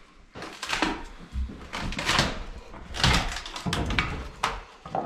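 Irregular wooden knocking and scraping of boards being handled among floor joists, with a sharper knock near the end.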